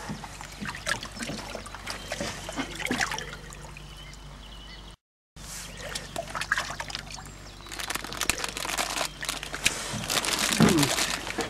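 Water sloshing, dribbling and splashing in a plastic holding tub as hands move large pike about in it. The splashing grows louder near the end, and the sound cuts out briefly about five seconds in.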